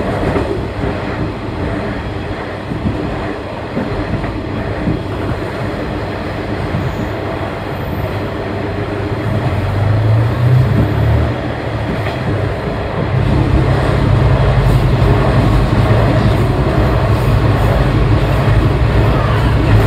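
Diesel railcar on the Kashima Rinkai Railway's Ōarai-Kashima Line running along the track, its engine and wheels heard from inside the rear cab. About two-thirds of the way through the sound grows louder with a steady low hum.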